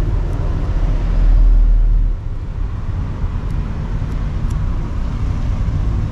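Steady low rumble of road traffic. It swells about a second in and drops off at about two seconds, like a heavy vehicle passing, with a few faint light clicks over it.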